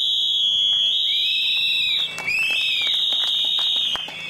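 Several whistles blown in long, loud, overlapping blasts. One high tone holds steady while others rise and fall beneath it, with a short break about two seconds in and a fresh blast near the end.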